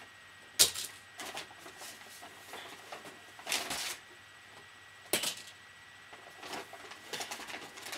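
Brown paper bag rustling and crinkling in bursts as a hand rummages through it for items. Two sharp knocks come through, one about half a second in, which is the loudest sound, and one about five seconds in.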